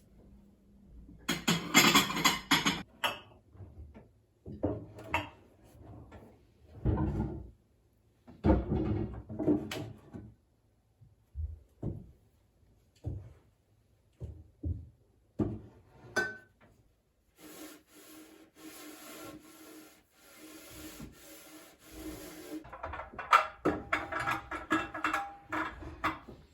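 Cleaning by hand: irregular bursts of scrubbing and rubbing strokes on a hard surface, a run of light knocks, then a steadier hissing stretch before more scrubbing.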